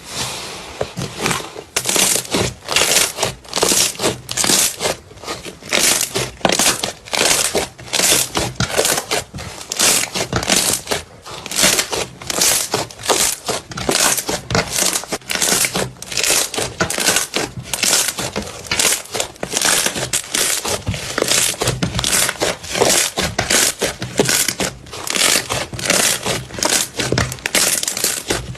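Slime being squeezed and pressed by hand, making a continuous run of sharp, crisp strokes about three a second.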